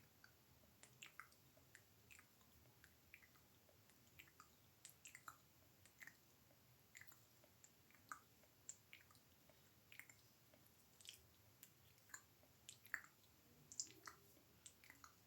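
ASMR mouth sounds close to the microphone: soft, wet tongue and lip clicks and smacks, irregular, several a second, with a few louder clicks near the end.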